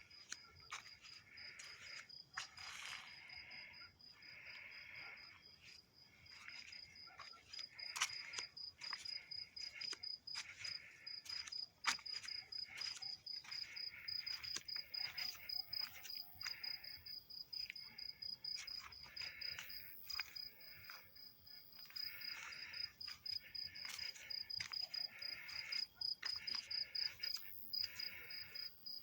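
Cricket chirping in a fast, steady high-pitched trill that goes on without a break, with a rougher, lower rasping call coming in bursts every second or two and a few scattered clicks.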